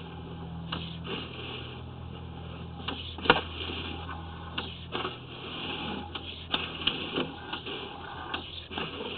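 Sewer inspection camera rig in use, its push cable being worked back through the lateral: a steady low hum with irregular clicks and knocks, the sharpest about three seconds in.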